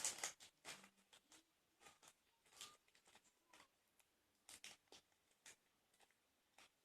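Near silence: room tone with faint, scattered short clicks and rustles.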